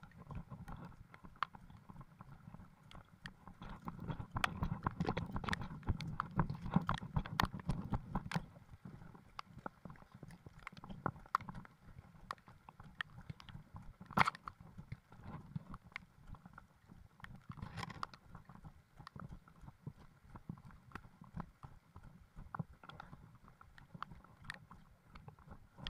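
Footsteps of people walking on a dirt forest path strewn with dry leaves, an irregular run of soft steps and small crunches with low rumble from the handheld phone moving. One sharper knock stands out about fourteen seconds in.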